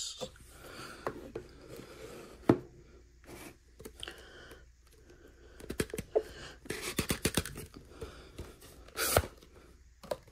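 Rigid cardboard Topps Midnight trading-card boxes being handled: the inner boxes rubbing and scraping as they are worked out of their snug outer sleeves without tearing them. There is a sharp tap a few seconds in, a quick run of clicks past the middle, and a scraping swish near the end.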